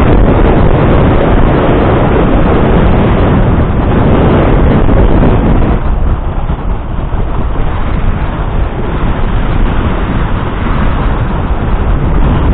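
Heavy wind buffeting the camera's microphone: a loud, steady rumble that eases a little about six seconds in.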